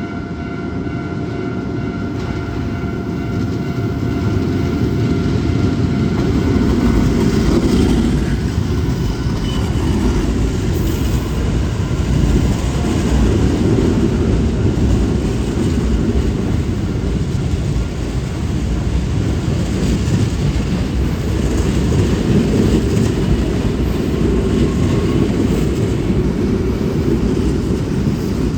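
Hankyu electric train running past at close range: a loud, steady rumble of wheels and running gear that builds over the first few seconds and keeps up throughout.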